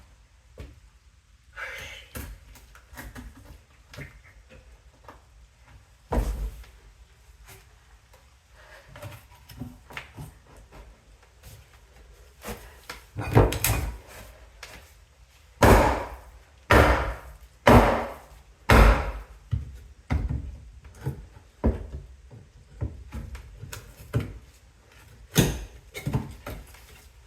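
Termite-damaged wooden floor being broken up by hand: irregular knocks and thuds of tools and boards, with a run of five heavy blows about a second apart around the middle.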